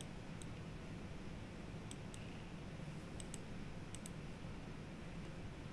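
Computer mouse clicks, several of them in quick pairs like double-clicks, with a steady low hum underneath.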